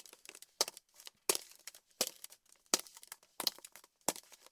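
AI-generated (ElevenLabs) sound effect of high-heeled footsteps on glass balls: sharp, crunchy clicking steps about every two-thirds of a second, each with a short crackle after it.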